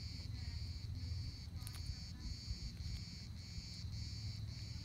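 A cat crunching and chewing on a small snake held in its mouth. Behind it, insects chirp in even pulses, just under two a second.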